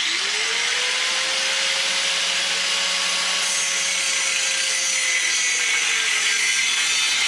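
Corded angle grinder starting up and cutting into 1¼-inch steel tubing. The motor's whine rises quickly as it spins up, holds steady under a loud gritty grinding noise, then sags in pitch about five to six seconds in.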